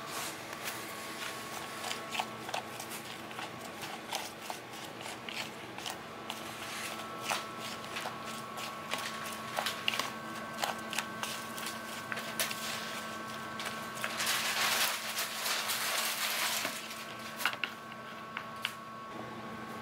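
Wooden chopsticks clicking and tapping against ceramic plates and a bowl as shredded vegetables and shrimp are picked up and tossed with flour, over a steady background hum. A hiss lasting about two and a half seconds comes in about fourteen seconds in.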